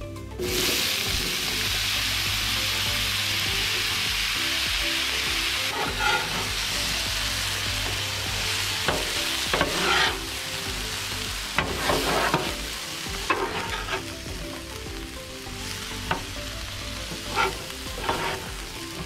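Diced vegetables and pineapple hitting an oiled, hot steel flat-top griddle with a sudden loud sizzle, then frying while two metal spatulas scrape and clack across the griddle top as they are tossed. The sizzle eases off after about six seconds, and the spatula strokes come every second or two.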